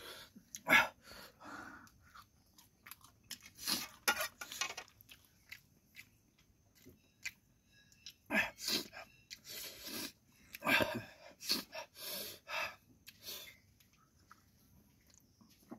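Close-up chewing and crunching of the last scraps of spicy noodles, in irregular bites.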